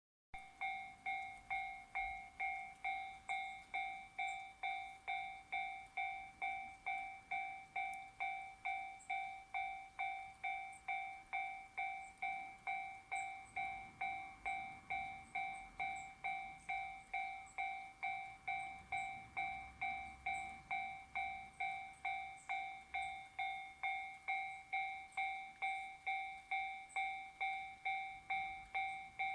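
Japanese railway level crossing's electronic alarm in the JR standard tone, ringing a steady, repeated bell-like ding a little under two times a second, each strike fading before the next.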